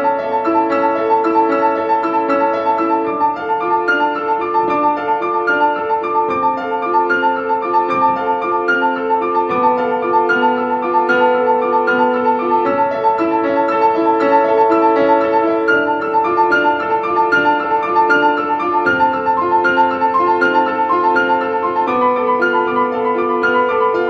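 Instrumental background piano music: a quickly repeated high note over slowly changing chords.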